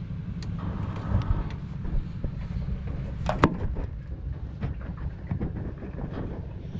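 Pickup truck engine idling with a steady low rumble, with scattered knocks and clanks, the sharpest about three and a half seconds in.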